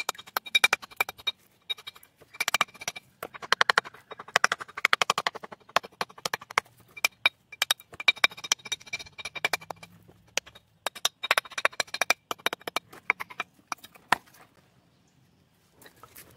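A hammer tapping on a stone in quick runs of light blows with a faint metallic ring, dressing the face to wear away the mark left by the cutting blade. The tapping stops near the end.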